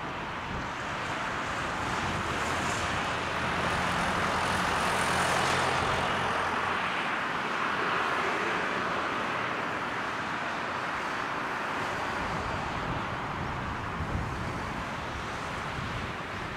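Jet airliner's turbofan engines passing by, a rumble with a faint high whine that builds to its loudest about five seconds in and then slowly eases off.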